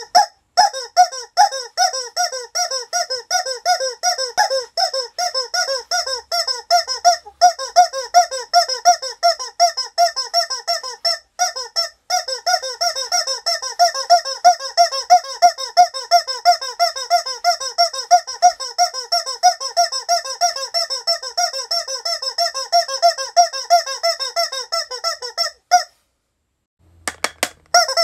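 A squeaky rubber toy squeezed over and over in quick succession, several short high squeaks a second. There is a brief break about eleven seconds in, the squeaking stops about two seconds before the end, and a few more squeaks come right at the end.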